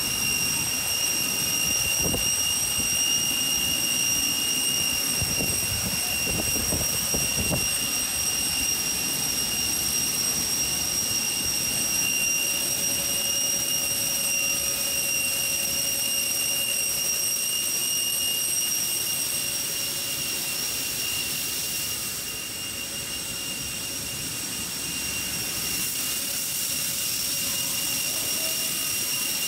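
Jet turbine running steadily: a constant high whine over a rushing hiss. A few soft knocks sound early on, and the level eases slightly about three quarters of the way through.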